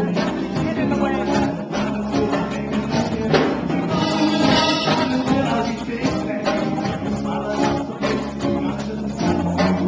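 A live band playing a song, with guitar and a steady percussion beat.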